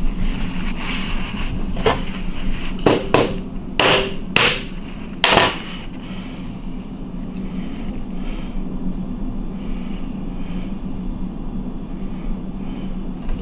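About six sharp blows on a 12AX7 miniature vacuum tube wrapped in a paper towel, in the first half, cracking open its glass envelope. Faint small clinks of broken glass being handled follow.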